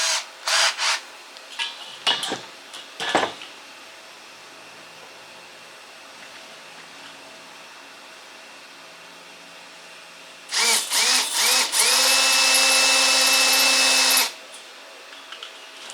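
Power drill enlarging pilot holes in a Weber Smokey Mountain smoker's lid. A few short trigger bursts and knocks come at the start. About ten and a half seconds in there are several brief spin-ups, then a steady run of about two and a half seconds that cuts off.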